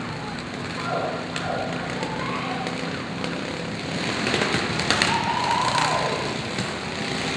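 Several riding lawn mower engines running and revving together, with a few sharp knocks about halfway through.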